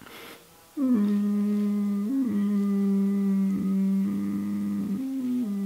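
A man's low voice humming a slow tune with the mouth closed, holding long notes and stepping up and back down in pitch a few times.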